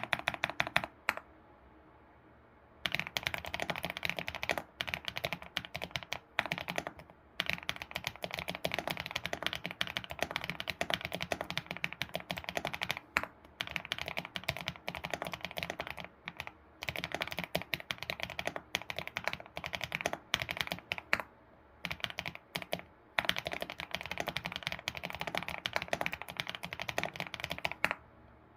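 ABKO computer keyboard being typed on quickly, a dense patter of key clacks ("dogak-dogak") in long runs broken by a few short pauses.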